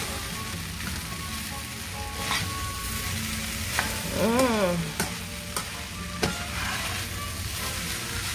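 Fried rice sizzling in a nonstick pan while a utensil stirs and tosses it. There are scrapes and several sharp clicks of the utensil against the pan, bunched in the middle.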